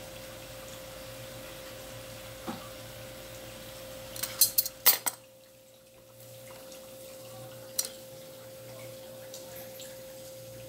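Kitchen bowls and utensils clinking and clattering: a quick cluster of knocks about four to five seconds in, a single clink near eight seconds, over a steady faint hum.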